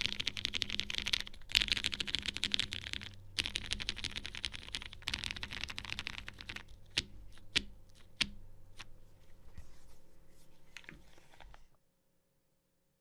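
Custom Lin Whale mechanical keyboard with heavily lubed Cherry MX vintage brown switches on a PC half plate and GMK keycaps, typed on fast in two dense runs with a short pause between. It then slows to separate keystrokes, a few of them louder, and stops near the end.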